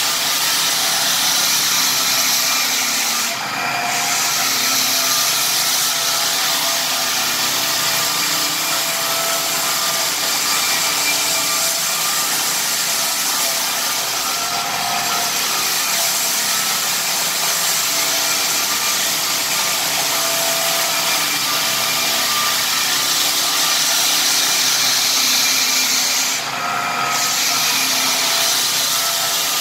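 Lägler Hummel drum sander running and sanding rift red oak flooring: a loud, steady whir and hiss of abrasive on wood. The noise dips briefly twice, a few seconds in and near the end.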